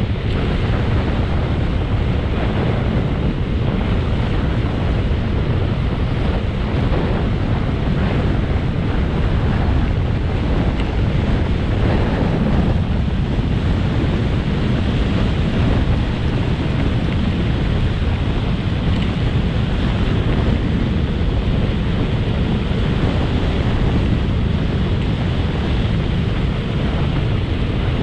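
Steady wind buffeting the microphone of a camera moving at speed down a road: a loud, unbroken rushing with a deep rumble.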